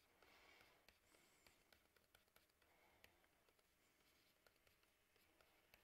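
Near silence, with faint, scattered light ticks of a stylus writing on a tablet.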